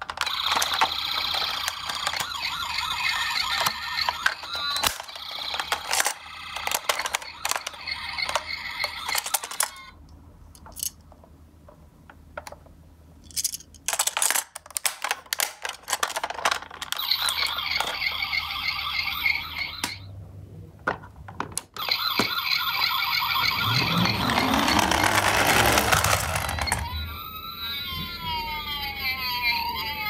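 Toy ambulance's electronic siren sounding in stretches, over small plastic clicks and knocks. Near the end comes a loud rushing noise for a few seconds, then a wailing siren that sweeps up and down.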